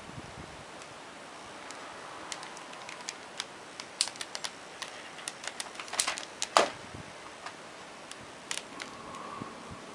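Irregular sharp taps and clicks against a vacuum cleaner's plastic body, bunched together in the middle with the loudest knock about six and a half seconds in, over a steady hiss.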